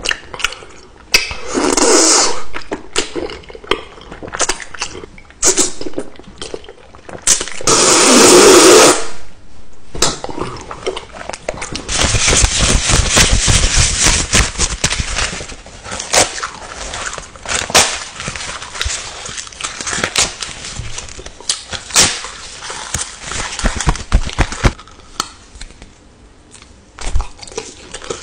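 Close-miked mouth and eating sounds: two loud slurps of soft white jelly off a spoon in the first part, then about three seconds of dense crackly rustling from a stack of pastel paper money held at the mouth, then sparse wet clicks and smacks around a candy lollipop.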